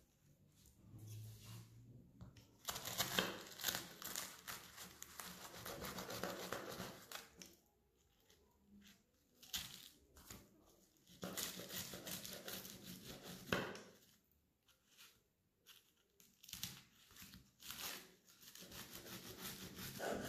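Knife cutting through crisp, flaky baked puff pastry on baking parchment: crackling, crunching strokes with the paper crinkling, in three spells separated by pauses.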